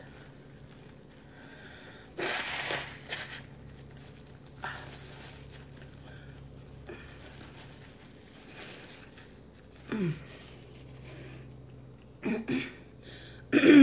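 A runny nose being blown hard into a paper napkin: one loud, hissing blast about two seconds in, lasting about a second. A few short throat sounds follow near the end.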